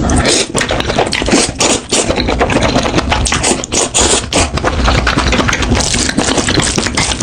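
Spicy noodles being eaten close to the microphone: loud, continuous slurping and chewing with many short crackling smacks.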